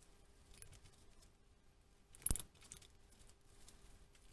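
A single sharp snip of scissors cutting a disposable diaper, about halfway through, with faint crinkling of the diaper around it.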